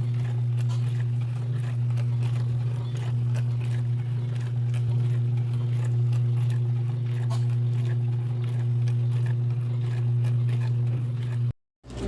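Countertop dishwasher running: a steady, loud low electric hum from its pump motor, with faint ticking and spatter over it. The hum cuts off suddenly near the end.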